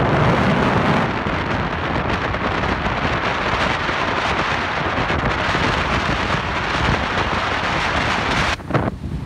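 Strong wind buffeting the microphone outdoors by open water, a loud, steady rushing noise that briefly drops away near the end.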